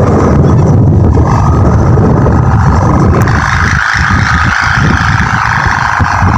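Wind buffeting an outdoor microphone in a loud, uneven low rumble, with a steady higher hum that strengthens about halfway through.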